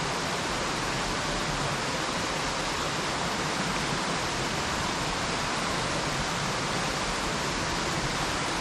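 Steady rushing of running water, a burn or small waterfall, an even unbroken rush that starts and stops abruptly.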